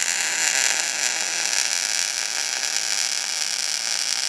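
Wire-feed welder's arc running in a steady hiss while a bead is laid where a steel ball meets a steel plate, cutting off abruptly at the very end as the trigger is released.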